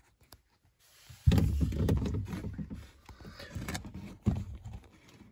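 Handling noise as things are shifted about in a cupboard under a sink, close to the microphone: a sudden bump a little after a second in with a rumble that fades over a couple of seconds, then a second, smaller bump near the end.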